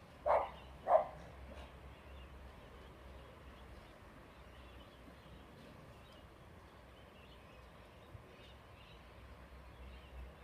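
A small dog barks twice in quick succession, the two sharp barks well under a second apart.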